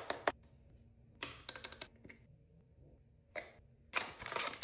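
Small handling noises: several short clusters of clicks and clatters a second or two apart, the loudest cluster near the end.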